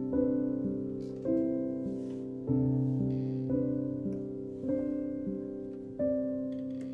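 Slow solo piano music: chords struck about once a second, each left to ring and fade before the next.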